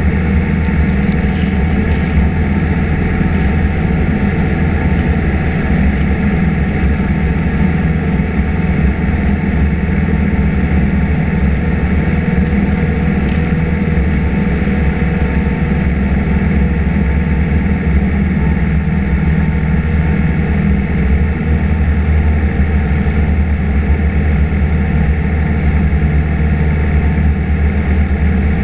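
Piper PA-28 Cherokee's four-cylinder Lycoming engine and propeller in cruise flight, a steady drone heard inside the cabin, holding one even pitch throughout.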